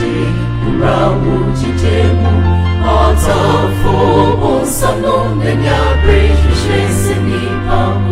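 Gospel music: a choir singing over a heavy bass line that moves to a new note every second or so.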